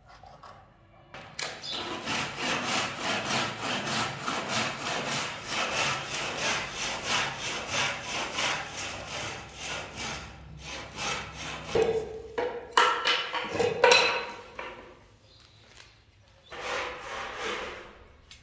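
A hand tool stroking back and forth on wooden door moulding, about three strokes a second, for most of the first ten seconds. After that come a few sharp knocks and a shorter burst of the same scraping near the end.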